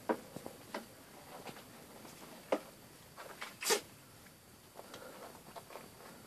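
Scattered faint clicks and brief rustles of handling, with two louder rustles about two and a half and almost four seconds in.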